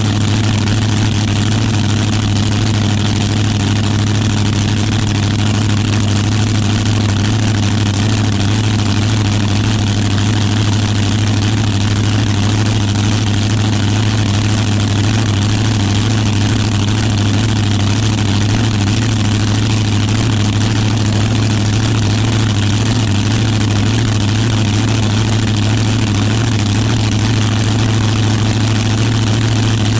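Front-engine dragster's V8 idling steadily through short open header pipes, loud and unchanging.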